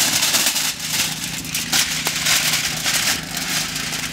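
Aluminium foil crinkling and rustling as a sheet is pulled from its box and pressed flat by hand, a dense run of irregular crackles.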